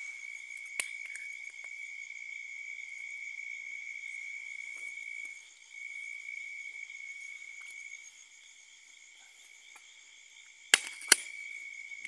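Steady high-pitched chirring of night insects, dipping briefly near the middle and softer for the last few seconds. A single click about a second in, and two sharp clicks close together near the end, the loudest sounds.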